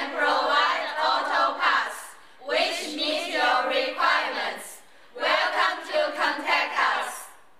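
A group of women speaking together in unison, like a chorus, in three phrases with short pauses between them.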